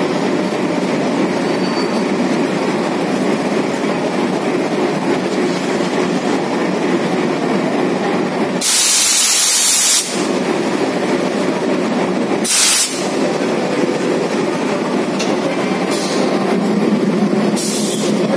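Diesel locomotive engine running steadily, with sharp blasts of compressed air hissing from the air brake hoses as they are connected: a long one of about a second and a half about nine seconds in, a shorter one a few seconds later, and a brief one near the end.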